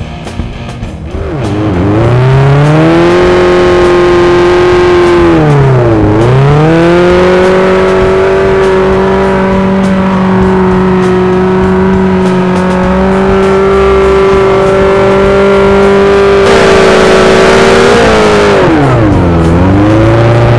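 Suzuki GSX-R1000's inline-four engine held at high revs through a burnout, the rear tyre spinning on the asphalt. The revs climb about a second and a half in, drop and climb again around six seconds in, hold steady for about ten seconds, then drop and rise again near the end.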